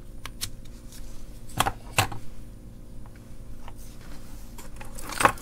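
Small plastic clicks and knocks from unplugging a USB current meter and resistor load board from a car charger and handling them on a wooden bench. A few separate clicks come in the first two seconds, and a louder clatter comes near the end.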